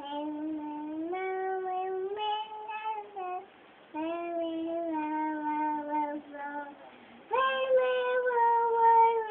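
A child singing a slow tune in long held notes, in three phrases with short breaks about three and a half and seven seconds in.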